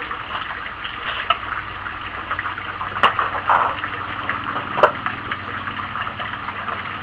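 Wood fire burning in a rocket stove: a steady rushing noise with crackles, and two sharp knocks about three and five seconds in.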